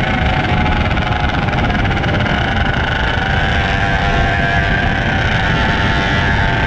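Superbike engine running steadily at cruising speed, its pitch holding level, over a dense rushing noise.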